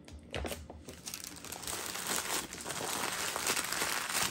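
Hands crumpling a yellow Egg McMuffin wrapper into a ball, making a dense crinkling crackle. It starts about half a second in and fills out from about a second in.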